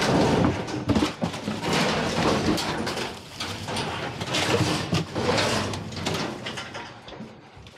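Metal wire display racks and baskets clattering and scraping against one another as they are pulled and shifted, with rustling of paper and plastic underneath. Louder in the first few seconds, tapering off toward the end.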